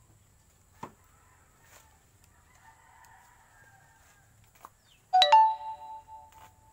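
A rooster crows once, loud and close, about five seconds in. The crow opens with a couple of short lower notes and ends on one long held note.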